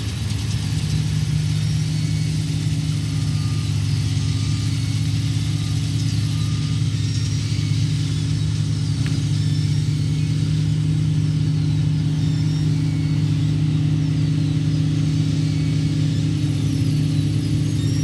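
New Holland CX8080 combine harvester running steadily while harvesting barley. Its engine and threshing gear make a deep, even drone that holds constant throughout.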